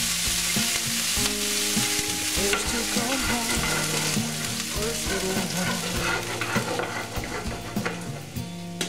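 Liquid cream poured into a hot frying pan over high heat, sizzling hard as it meets the deglazed pan juices. The sizzle eases toward the end as the cream settles in the pan.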